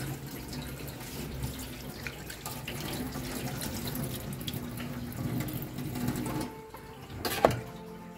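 Tap water running and splashing over a whole pomfret held by hand in a stainless steel sink as it is rinsed. The water stops about two-thirds of the way through, and a sharp knock follows shortly after.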